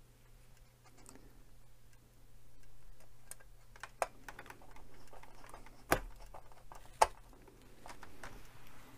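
Small clicks and taps of fingers and a small hand tool working on a plastic scale-model car chassis, with three sharper clicks in the second half.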